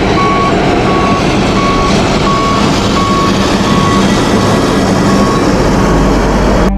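Heavy snow-clearing vehicle reversing: its back-up alarm beeps at a single pitch about every 0.7 seconds over the loud running of its diesel engine, the beeps growing fainter in the last couple of seconds.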